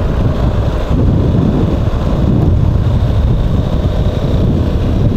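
Wind rumbling over a lavalier microphone under an open-face motorcycle helmet, with a KTM 390's single-cylinder engine running underneath as the bike rides along. Loud and steady throughout.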